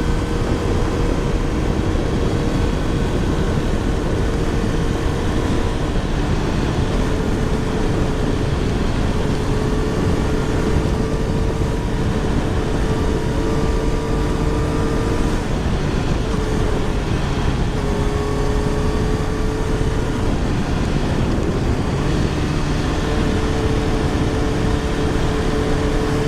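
Wind rushing over a helmet-mounted microphone on a moving motorcycle, a steady loud roar, with the engine's hum underneath drifting slightly in pitch.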